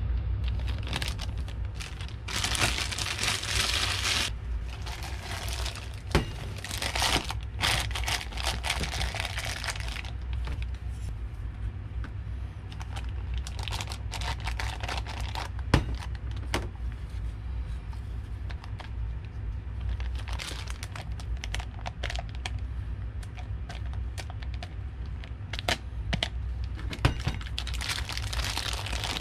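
Plastic piping bag crinkling and rustling in the hands as stiff churro dough is scooped into it with a spatula, in irregular bursts with a few sharp clicks. A steady low hum runs underneath.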